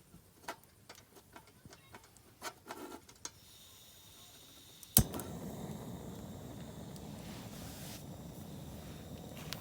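Light clicks of a metal sierra cup being handled. About five seconds in, a sharp click, then a steady rushing noise as a small camp burner is lit under the cup of rice and water.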